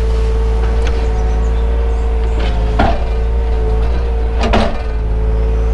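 Takeuchi excavator's diesel engine running steadily, with a steady hydraulic whine, heard from inside the cab. Two short knocks about three seconds in and again about a second and a half later, as the machine works the mud.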